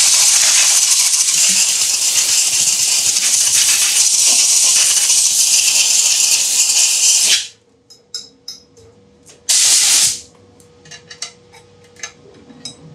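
Compressed-air blowgun on a coiled air hose blowing out a belt sander's cast frame: one long blast of about seven seconds that cuts off sharply, then a short second blast about two seconds later. Light clicks and handling of the metal parts follow.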